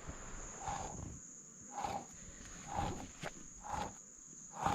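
Insects give a steady high-pitched buzz. Footsteps land about once a second beneath it, five soft knocks in all.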